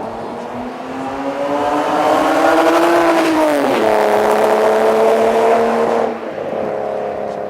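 Lexus IS300's 2JZ inline-six accelerating hard through a MagnaFlow muffler and dual-tip exhaust. The exhaust note climbs for about three seconds, drops sharply in pitch, climbs again, then falls away about six seconds in.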